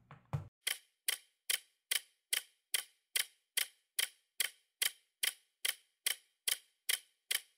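Clock-like ticking, very even at about two and a half ticks a second, with silence between the ticks, as from a ticking-clock sound effect.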